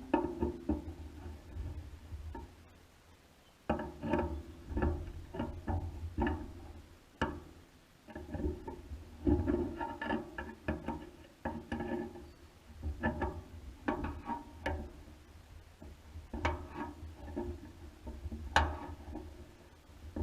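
Irregular knocks and clatter of tools and parts being handled while the top of a cattle feeder bucket is taken apart, with two sharper strikes, one about a third of the way in and one near the end. A low rumble runs underneath.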